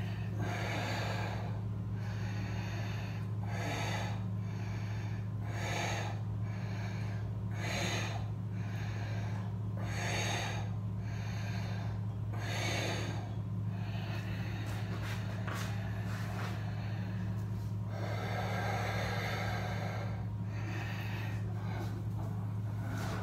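A yoga practitioner's deep, audible breathing through the throat, a slow in- or out-breath about every two seconds, with a longer breath near the end, over a steady low hum.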